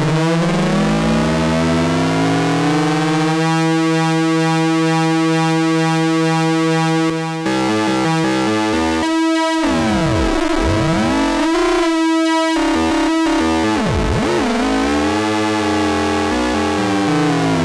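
Moog Mother-32 semi-modular analog synthesizer holding a low tone with sweeping overtones as its LFO modulates the sound. The sound changes abruptly about seven seconds in, then keeps sweeping.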